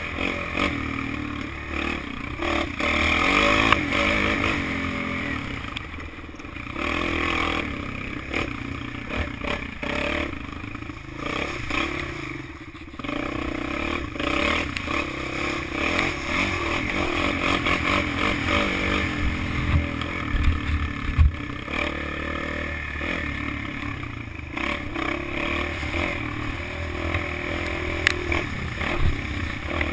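Kawasaki KFX400 quad's single-cylinder four-stroke engine revving up and backing off as it is ridden over rough dirt, with the throttle dropping off briefly several times. The machine's body and chassis clatter and rattle over the bumps.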